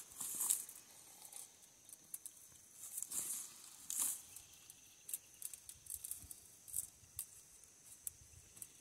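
Faint, irregular scrapes and rustles as a coil of smooth galvanized fence wire is handled and lifted upright.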